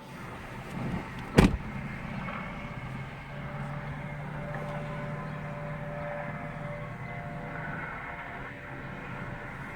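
Steady road and engine noise heard from inside a moving car, with a low hum held through the middle. A single sharp knock comes about a second and a half in.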